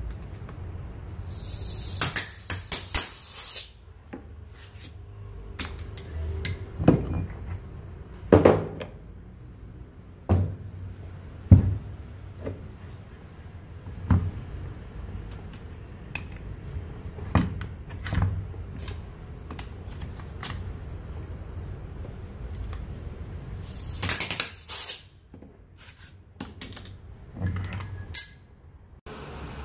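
Metal parts and hand tools clinking and knocking on a workbench during work on a six-piston brake caliper, with scattered sharp clinks over a low steady hum and two short stretches of hiss.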